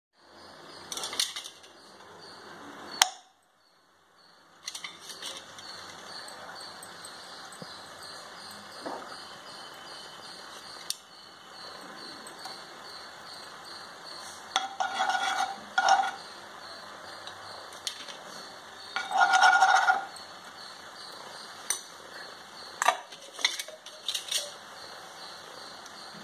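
A steel spoon clinking and scraping against a nonstick kadai holding hot oil, over a steady hiss. There are sharp clinks near the start and end, and longer scraping strokes around the middle.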